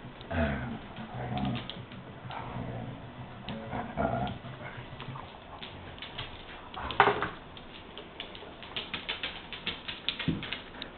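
Basset hound making low grumbling vocalizations, then one loud sharp bark about seven seconds in. Rapid clicking follows near the end.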